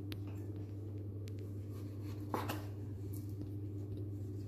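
Chef's knife slicing figs on a bamboo cutting board: a few soft taps and scrapes of the blade on the wood, the loudest about two and a half seconds in, over a steady low hum.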